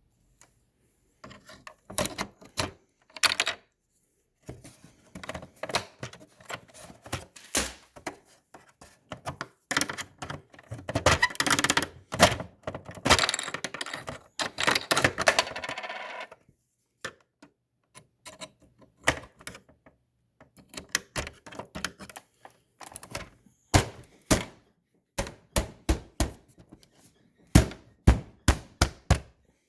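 Hand work on a refrigerator's control panel: a long run of sharp clicks and knocks from tools against plastic parts, with a denser stretch of continuous clatter about ten to sixteen seconds in.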